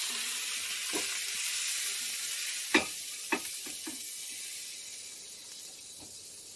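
Stir-fried vegetables sizzling in a hot wok, the sizzle fading away steadily as the wok is taken off the heat and emptied onto a plate. Two sharp clinks come about three seconds in, with a few lighter knocks around them.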